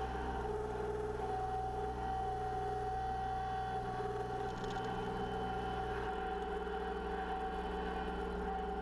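Kubota L3901 tractor's three-cylinder diesel engine running steadily, with a constant whine over the engine note.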